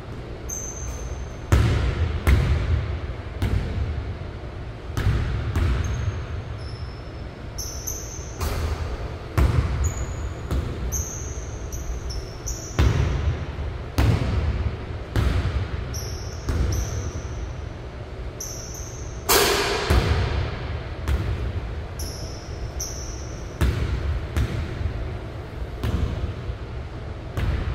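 Basketball bouncing on a hardwood gym floor during solo shooting practice, with irregular thuds every second or two and one louder bang about two-thirds of the way in. Short, high sneaker squeaks come in between.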